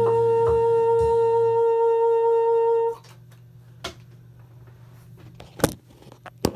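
Bassoon played with a Légère synthetic reed, holding one long final note that cuts off sharply about three seconds in. A faint low hum is left, and several knocks follow as the phone recording it is handled.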